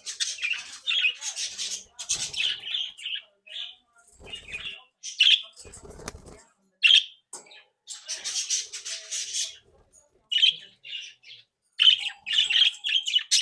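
A group of budgerigars chattering and squawking, with rapid short harsh calls and chirps in bursts separated by brief pauses.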